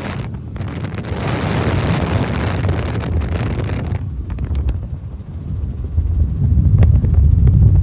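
Wind buffeting the microphone aboard a helicopter in flight, over a low rumble from the helicopter. The rushing wind noise is loudest in the first half and drops away about four seconds in, while the low rumble grows heavier near the end.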